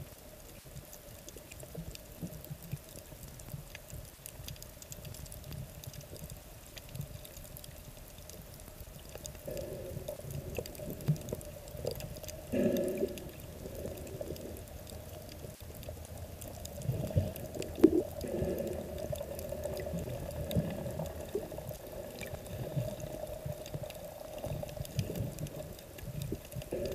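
Muffled underwater sound from a camera in a waterproof housing: water sloshing and bubbling, with a few short, louder knocks in the second half.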